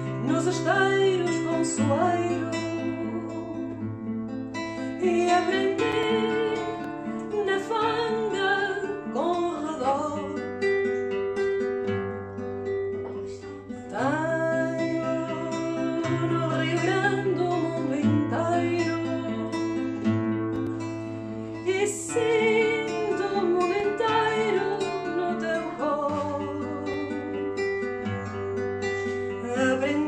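Background music: an acoustic guitar over a slow, even bass line, with a wavering melody that sounds like a singing voice.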